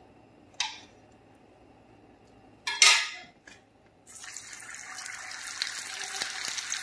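Two knocks of kitchenware, the second louder, then butter going into a hot pan of oil starts sizzling about four seconds in: a steady crackling hiss that grows slightly louder.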